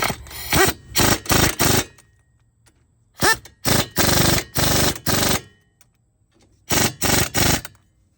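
Impact wrench run in short bursts of rapid hammering, in three groups of several bursts each with pauses between, typical of a bolt being run in and snugged.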